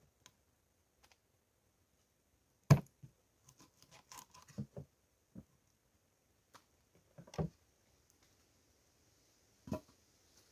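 Large machete-style knife chopping a fish on a wooden cutting board: a scattered series of sharp knocks of the blade on the board, the loudest about three seconds in.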